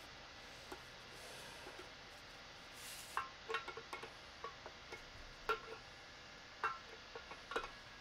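Adjustable wrench clinking and clicking against a toilet floor-bolt nut as it is tightened down: a series of short, irregular metallic clinks with a brief ring, starting about three seconds in.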